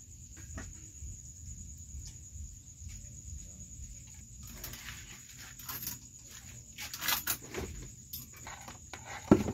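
Crickets chirring steadily in the background over a low hum, with scattered light clicks and knocks of bowls being handled, and one sharp knock near the end.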